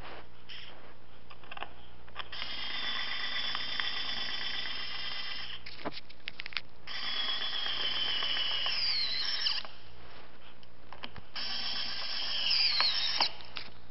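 Cordless power drill/driver running in several bursts of a few seconds each, with clicks in between. Near the end of two of the runs the whine slides down in pitch.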